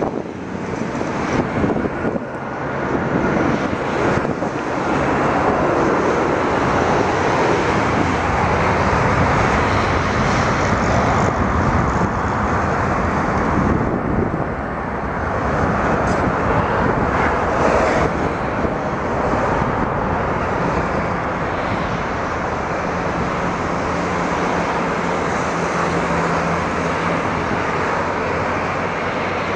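Twin-engine jet airliner's engines running on the runway: a loud, steady rush of jet noise that dips briefly about halfway through.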